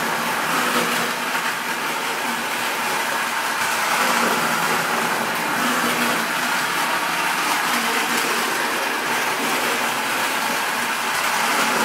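Battery-powered Distler H0 toy train running steadily around its track: the small electric motor whirring with the wheels running on the rails.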